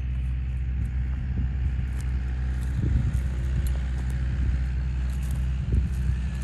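Low, steady rumble of wind buffeting the microphone, with a faint hiss above it.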